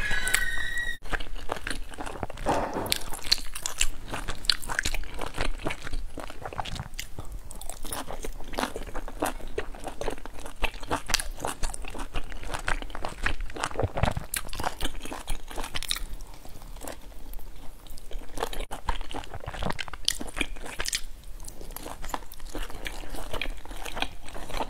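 Close-miked eating: a person biting and chewing soft dumplings dipped in sauce, with many quick wet mouth clicks and smacks. There is a brief squeak in the first second.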